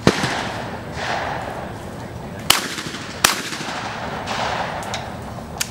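28 gauge shotgun shots on a skeet field: a report at the start, then a pair of shots about three quarters of a second apart, as in a skeet double, each trailing off in an echo, with a fainter pop near the end.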